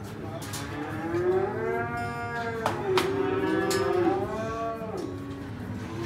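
Cattle mooing in the sale-barn pens: several long, drawn-out calls that rise and fall, overlapping one another. Two sharp knocks come near the middle.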